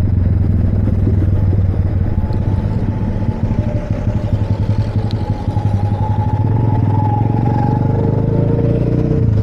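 Motorcycle engine running steadily while riding along a road, with a dense low drone of engine and road noise.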